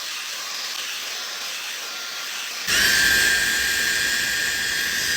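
Maxodo high-speed hair dryer with a brushless motor running, a steady rush of air. About two and a half seconds in it suddenly gets louder and a high steady whine comes in, starting with a short upward glide as the motor spins up.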